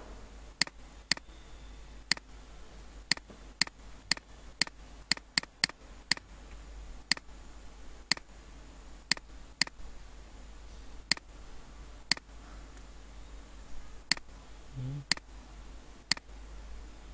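Computer mouse button clicking about twenty times: single sharp clicks at irregular spacing, several in quick succession around four to six seconds in, over a faint steady low hum.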